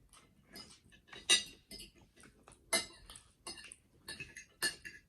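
Cutlery clicking and scraping against plates while eating: a string of irregular, sharp clicks, the loudest about a second in and again near three seconds.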